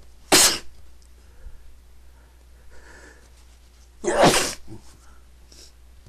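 A man sneezing twice: a short, sharp sneeze about a third of a second in, then a longer one a little after four seconds in.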